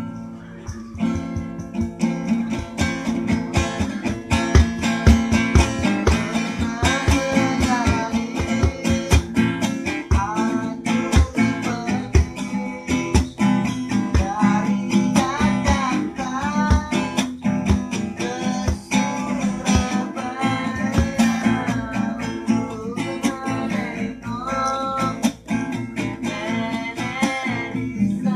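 Acoustic guitar strummed in a steady rhythm, with a man singing a melody over it.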